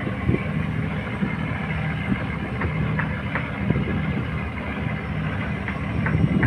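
Boat engine running steadily with a low, even hum, with a few faint knocks about halfway through.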